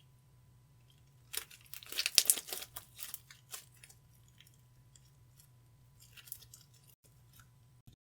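Clear slime being squished and pressed by hand, giving a dense run of crackling, popping clicks that lasts about two seconds, then a few softer clicks later on.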